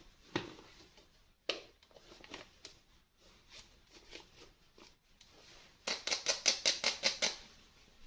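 Toy packaging being handled: scattered clicks and rustles, then a quick run of about a dozen sharp crackling strokes, some eight a second, lasting a little over a second near the end.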